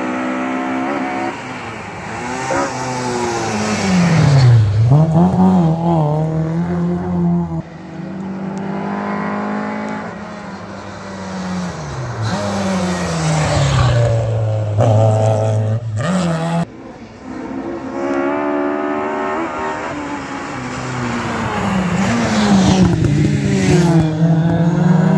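Historic rally cars at hard throttle on a tarmac stage, one after another, their engine notes climbing and dropping through gear changes and lifts as each comes up the road and passes close by.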